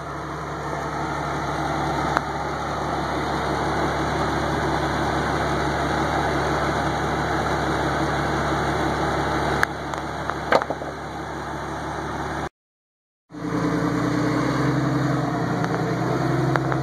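Lifted Jeep Cherokee XJ engine running steadily at low revs as it crawls over boulders, with a few sharp knocks. The sound cuts out for under a second about three-quarters of the way through, then the engine comes back with a changed note.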